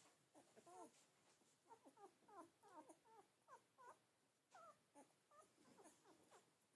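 Newborn puppies squeaking and whimpering faintly while suckling at their mother: many short, quick squeaks that bend up and down in pitch, thickest in the first half and again near the end.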